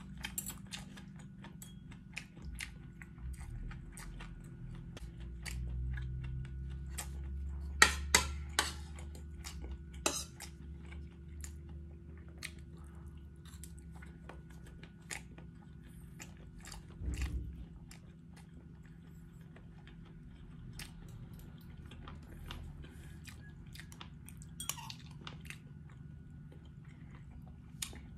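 Close-miked eating of rice and bulalo (beef shank soup): chewing and mouth sounds mixed with a spoon and fork clinking and scraping on a plate. Short sharp clicks come scattered throughout, loudest about eight seconds in, over a faint steady hum.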